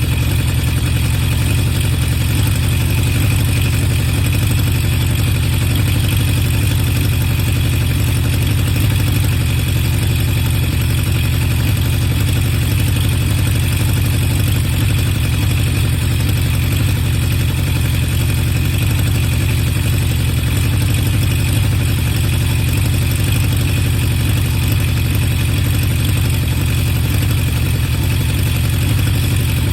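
Honda CB750 Four K3's air-cooled inline four idling steadily through a modified-baffle HM341 exhaust. It runs evenly with no spit-back: the high float level in carburettor #3 has been corrected, which has all but cured its carburettor sneeze.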